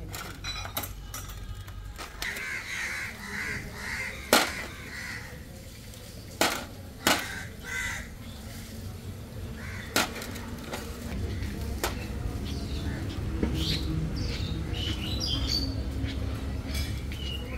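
Workshop sounds: about four sharp metallic clanks a few seconds apart, with a crow cawing a few seconds in. A low rumble builds in the second half.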